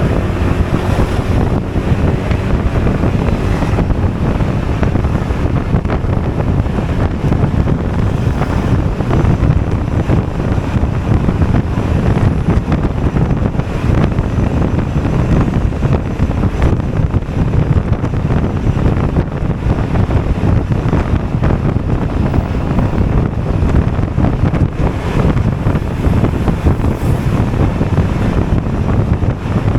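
Wind buffeting the microphone of a Honda Forza 250 scooter riding at speed: a loud, steady rush, heaviest in the low end, that covers the engine and road noise.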